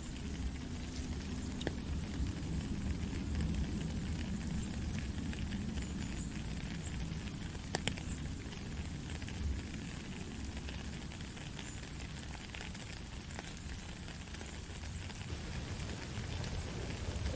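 Steady rain falling, an even hiss with scattered drop ticks and a low rumble beneath; a sharper tick about eight seconds in.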